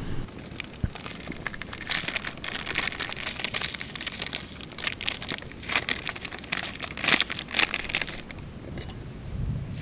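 Plastic packet crinkling and rustling as it is handled and opened, in an irregular run of short crackles.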